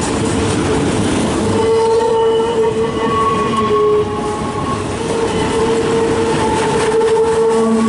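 Freight cars rolling past with a dense rumble and wheel clatter, over a steady squealing whine that wavers slightly in pitch and fades in and out. The railfan takes the squeal for wheel bearings that need replacing.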